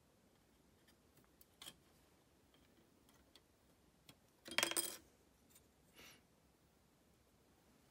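Small plastic parts of a 1/144 Gunpla kit clicking faintly as they are handled and fitted, with one brief, louder clatter about halfway through.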